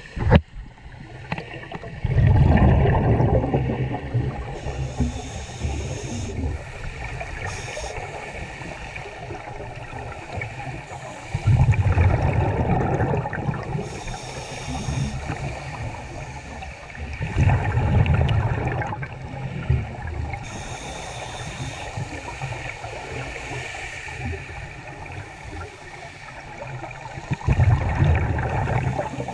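Scuba diver breathing through a regulator, heard through the underwater camera housing: four loud bubbling exhalations of about two seconds each, with softer hissing inhalations between them.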